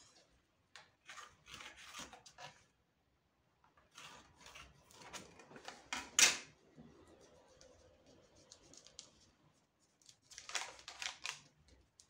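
A marker scratching along the edge of a paper pattern on fabric in several bursts of short strokes, with one loud knock about six seconds in as something is set down on the table.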